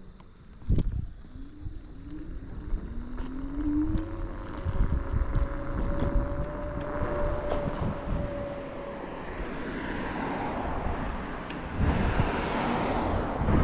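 Kaabo Wolf King GT electric scooter riding: the motor's whine rises in pitch as it speeds up, then holds steady, over low road rumble and wind on the microphone. There is a thump about a second in, and the wind rush swells near the end.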